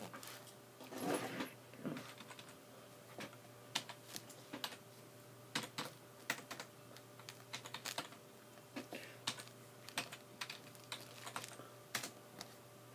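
Typing on a computer keyboard: irregular, scattered key clicks with short pauses, over a faint steady electrical hum.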